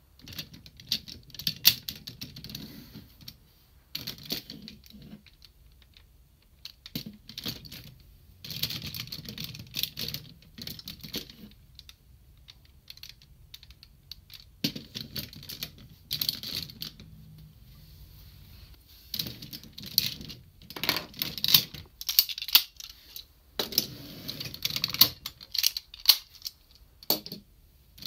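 Hard plastic parts of a DX Super ToQ-Oh train-combining robot toy clicking and clacking as train-car limbs are pulled off, turned and snapped into place, in irregular runs of clicks with a few short pauses.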